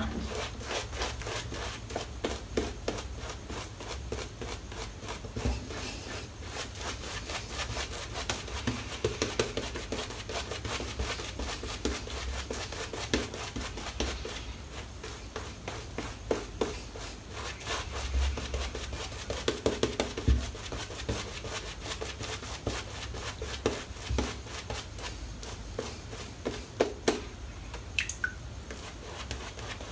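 Shaving brush swirling and scrubbing thick shaving-soap lather over the face: a steady run of soft wet crackling and bristle rubbing, with the odd louder stroke.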